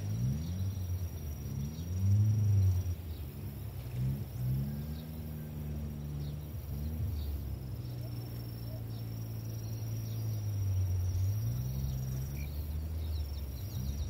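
Outdoor lakeside ambience: a steady high insect trill, under a louder low drone that rises and falls in pitch several times and holds steady for a while in the second half.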